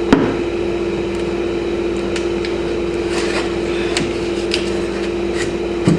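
Steady machine hum with one constant tone, like a running fan or air conditioner, with a few faint light clicks of parts being handled.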